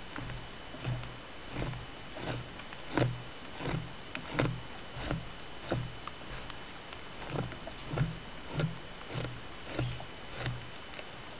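A flat blade scraping fat and membrane off a deer hide stretched over a fleshing beam, in short regular strokes about one and a half a second, with a brief pause about two-thirds of the way through.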